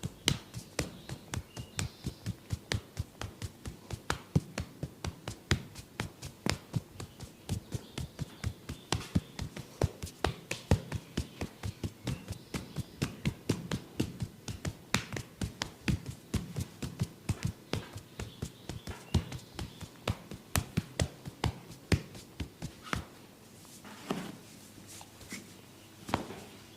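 Hands tapping rapidly and evenly in a massage, about four taps a second, stopping a few seconds before the end.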